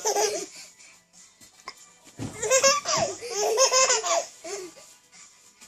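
Baby laughing in bursts: a short laugh right at the start, then a longer run of rapid, pulsing laughter from about two seconds in that lasts around two seconds.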